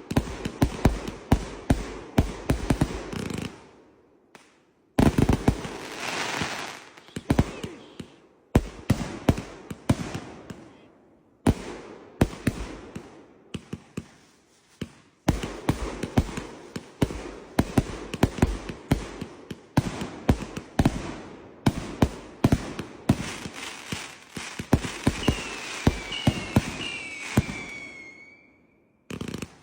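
Fireworks going off in rapid volleys of sharp bangs and crackling, with a few brief lulls between volleys. Near the end several whistles fall in pitch.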